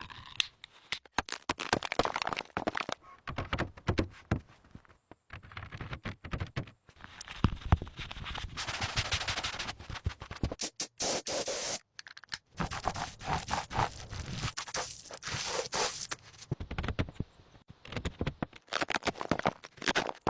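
Scraping, cracking and clicking sounds in short bursts, broken off by abrupt cuts.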